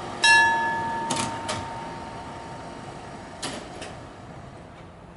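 Level-crossing warning bell: one loud ring about a quarter second in that dies away over a couple of seconds, as the barriers finish coming down. Two pairs of sharp clicks from the crossing follow, one pair about a second in and another about three and a half seconds in.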